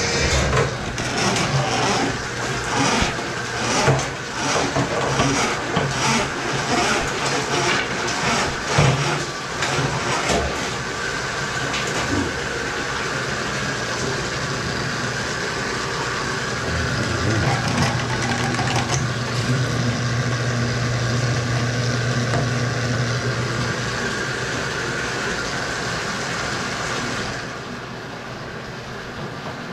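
Electric drain-cleaning machine running with its steel cable in a drain line clogged with lint and grease. In the first third the cable knocks and rattles irregularly, then the machine settles into a steady hum. The sound gets quieter near the end.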